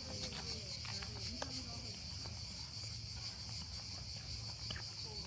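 Steady chorus of buzzing insects, a continuous high-pitched drone, with scattered light footsteps on the trail.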